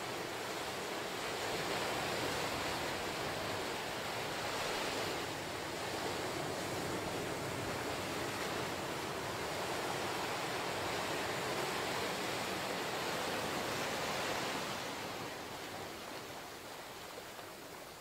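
Ocean surf washing up a sandy beach between lava rocks: a steady rush of breaking and receding waves that eases off over the last few seconds.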